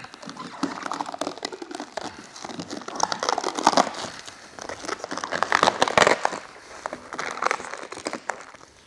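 Clear paint protection film being peeled off a truck's painted hood. The plastic crackles and crinkles as it lifts from the paint and bunches up in the hand, loudest about halfway through.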